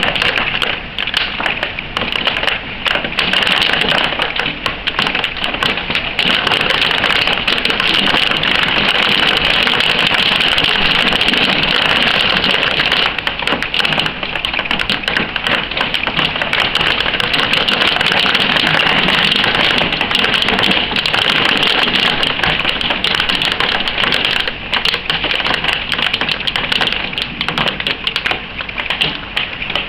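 Hailstones pelting down in a dense, unbroken clatter of rapid ticks, like heavy rain but sharper, heaviest from about six seconds in to about twenty.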